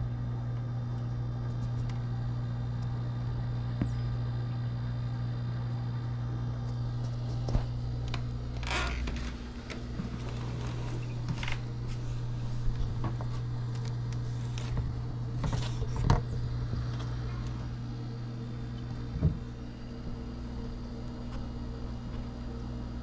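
A steady low electrical hum, with a few short knocks and rustles scattered over it.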